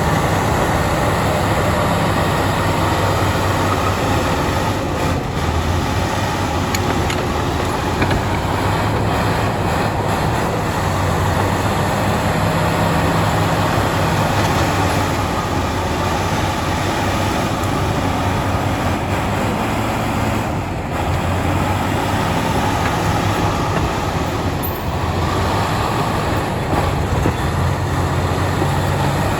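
Crawler bulldozer at work spreading stone: its diesel engine running steadily under load, with continuous mechanical clatter and noise.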